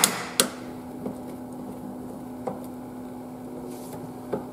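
The aluminum clamps of an EasyWeld 110 butt fusion welder being released by hand: a sharp metal click at the start, another about half a second later, a few faint knocks, and a clack near the end, over a steady low hum.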